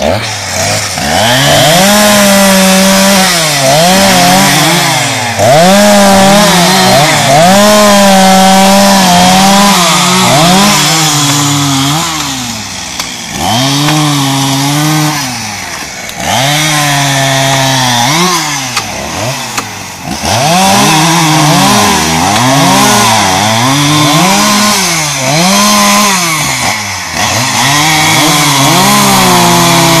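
Two two-stroke chainsaws running at the same time and cutting through felled tree trunks. Their engine notes repeatedly rise to full revs and sag as the chains bite into the wood, overlapping throughout.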